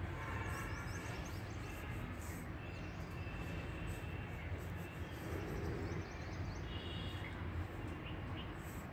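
Outdoor ambience: a steady low rumble with small birds chirping in quick bursts, about a second in and again about five seconds in.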